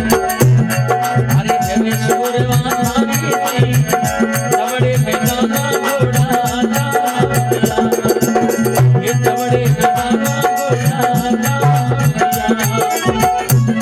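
Instrumental interlude of a Rajasthani folk devotional song: a fast, dense percussion rhythm under a repeating instrumental melody, with no singing.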